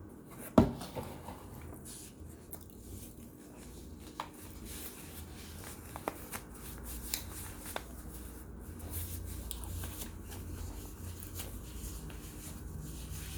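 Chunks of baked cornstarch being handled and moved into a bowl: scattered light clicks and rustling, with one sharp knock about half a second in.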